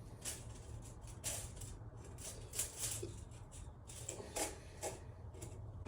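Faint, irregular clicks and rustles of a multi-layer steel head gasket being handled and set onto the engine block, over a low steady hum.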